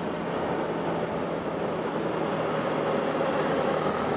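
Honda XRE 300's single-cylinder engine running steadily under way, mixed with wind and road noise, getting slightly louder toward the end.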